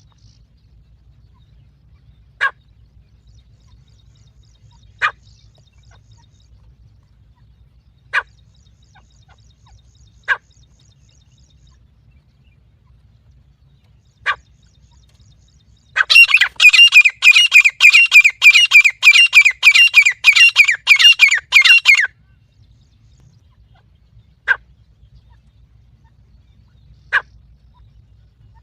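Teetar (francolin) calling: short single call notes every two to four seconds, and in the middle a loud, fast run of rapidly repeated notes lasting about six seconds.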